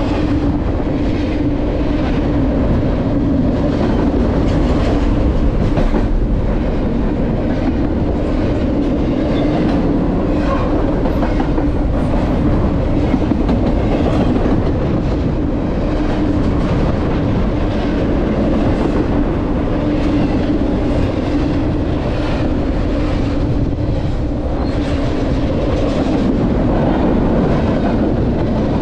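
Double-stack intermodal freight train's container well cars rolling past close by: a loud, steady rumble of steel wheels on rail, with repeated clicks and clacks over the rail joints and a steady hum underneath.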